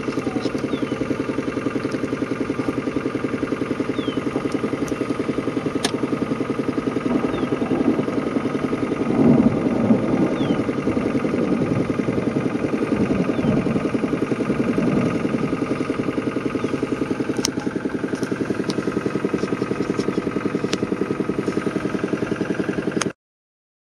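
Vehicle engine idling steadily, heard from inside the car. The sound cuts off abruptly near the end.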